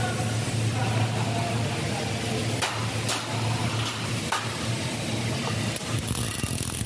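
Arc welding on a steel grating: a steady low hum with crackle, a few sharp metallic taps in the middle, and a brief bright hissing arc crackle near the end as a twisted square bar is tack-welded in place.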